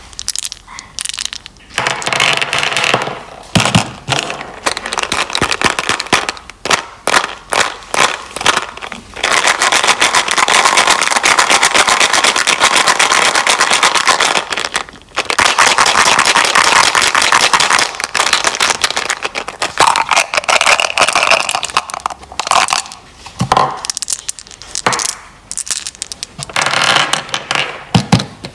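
Candy crackling and crunching close to the microphone: dense runs of rapid small cracks and clicks in long bursts, broken by short pauses.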